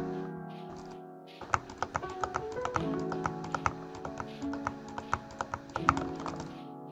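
Typing on a Royal Kludge RK61 mechanical keyboard with linear Gateron Yellow switches: a run of keystrokes, several a second, starting about a second and a half in and stopping near the end. Background music plays throughout.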